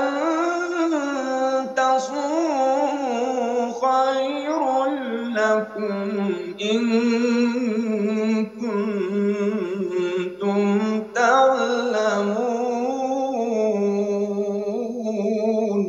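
A man reciting the Quran in a melodic, drawn-out chanting style. He holds long wavering, ornamented notes in a continuous phrase broken only by brief pauses.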